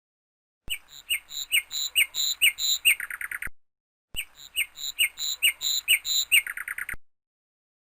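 A small bird's call: about a dozen quick, repeated chirps ending in a short, rapid trill. It is played twice, with complete silence before, between and after.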